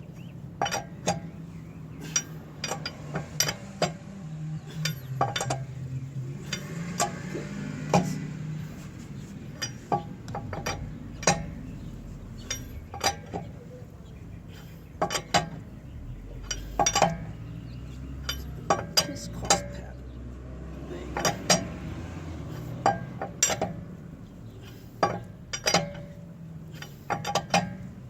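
Irregular metal clinks and clicks of a wrench and socket working on a car wheel's lug nuts as they are run down snug in a crisscross pattern, over a low steady hum.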